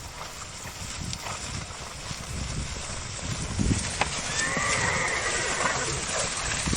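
Horse whinnying once, a call about four and a half seconds in that rises and then falls away, over hoof clip-clop and a noisy background.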